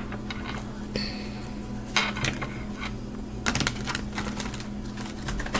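Tarot cards being handled on a table: scattered light clicks and taps, with a small flurry of them about halfway through, over a faint steady hum.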